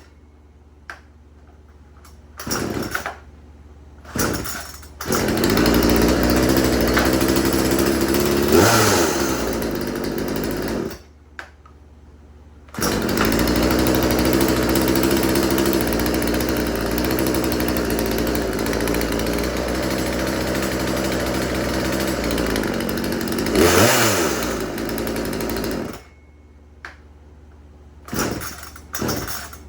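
Craftsman 36cc two-stroke chainsaw being pull-started. After a couple of short catches it fires up, runs, revs once and dies, then restarts, runs for about ten seconds with another brief rev and dies again, followed by more short bursts from pulls. The saw is struggling to stay running, which the owner puts down to the fuel filter not sitting at the bottom of the tank.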